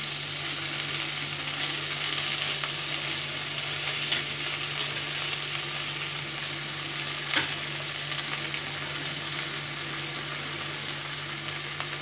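Onions, dried red chillies and tomatoes sizzling in hot gingelly (sesame) oil in an aluminium kadai: a steady frying hiss over a low hum, with a couple of sharp clicks partway through.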